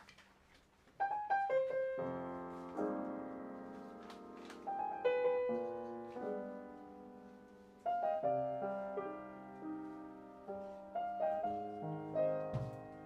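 Grand piano playing solo, starting about a second in with single notes and then full chords left to ring and fade between fresh attacks.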